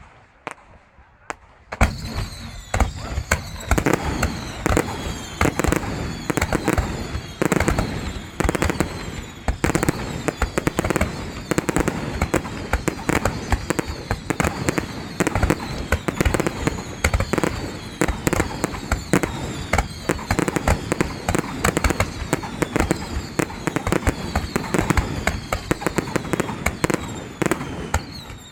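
Fireworks display: a dense, continuous barrage of bangs and crackling that starts suddenly about two seconds in and keeps up without a break.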